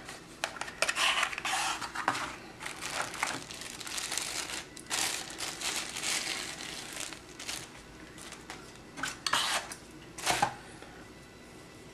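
A cardboard knife box and its packing being handled: irregular rustling and crinkling as the tray slides out of its sleeve and the knife is unwrapped, then two short separate sounds near the end.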